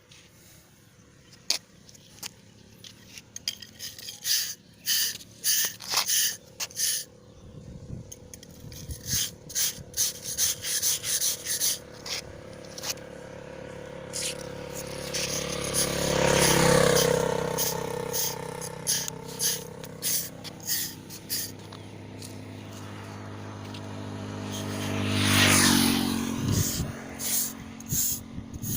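A tool scraping and tapping on concrete in quick, irregular strokes for the first dozen seconds. Then two passing motor vehicles: each one's engine noise swells and fades, the first around the middle and the second near the end.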